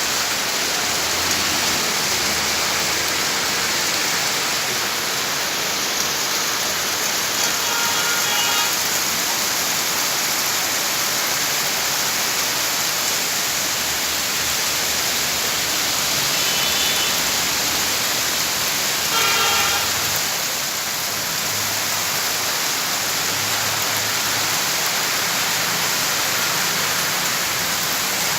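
Steady heavy rain falling. Three short pitched sounds stand out over it partway through.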